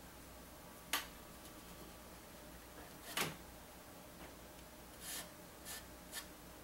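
Hands handling a plastic Nerf blaster shell and paintbrush: a few short clicks and knocks over a low steady hiss, the sharpest about a second in.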